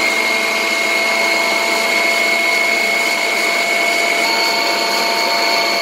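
Food processor motor running at a steady high whine while blending garlic and egg white as oil is drizzled in through the feed tube to emulsify it into garlic sauce. It is switched off and stops abruptly at the very end.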